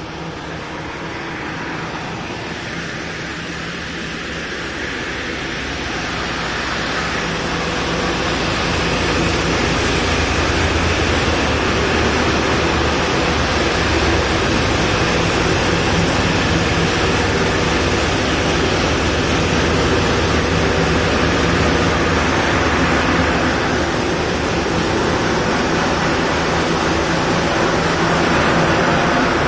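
Granite block-cutting machine's large water-cooled circular saw blade running through a granite block: a steady, loud hiss over a low motor hum. It grows louder over the first several seconds, then holds steady.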